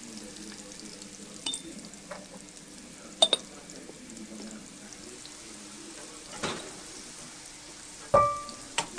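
Onions and chilli powder frying in oil in a metal pot, a steady sizzle, stirred with a perforated metal ladle. Several times the metal utensils knock and clink against the pot, and the loudest knock, about eight seconds in, rings briefly.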